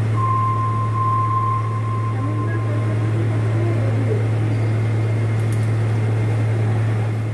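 A steady low mechanical hum, with a thin high tone over it for the first three seconds or so.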